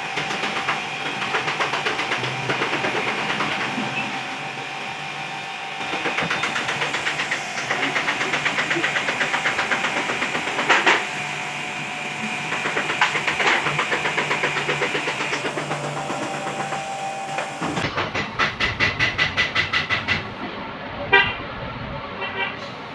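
Yamaha R15 single-cylinder VVA engine running and being revved in repeated swells, with a steady whine over a fast rhythmic pulsing; this is the engine noise under diagnosis. Near the end the sound turns to a quicker, deeper pulsing with a few sharp clicks.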